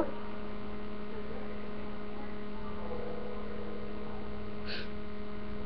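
Steady electrical mains hum, with a brief faint hiss about three-quarters of the way through.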